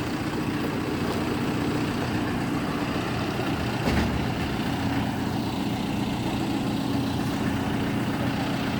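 Diesel engine of heavy equipment running steadily, with a single knock about four seconds in.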